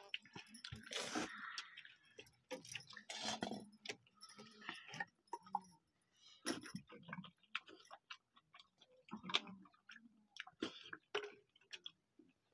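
People eating rice and curry by hand from steel plates: faint, irregular clicks and smacks of chewing and of fingers working the rice against the metal plates.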